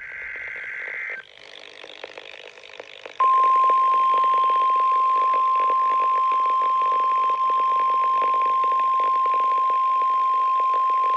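Emergency Alert System broadcast: a short burst of warbling data tones is cut off about a second in, then, after a couple of seconds of hiss, a loud single-pitched attention tone starts suddenly about three seconds in and holds steady. A hiss runs beneath it.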